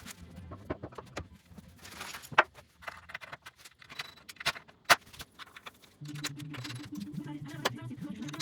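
Irregular clicks, taps and knocks of hand work on wooden cabinet doors and their metal hinges, a few of them sharper than the rest. A low steady hum comes in about six seconds in.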